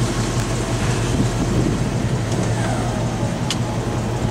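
A steady low mechanical hum of a running motor, with a single sharp click about three and a half seconds in.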